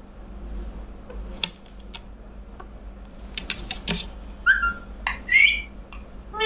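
Rose-ringed parakeet: a run of sharp clicks, then two short chirping calls, one just past halfway and one a little later.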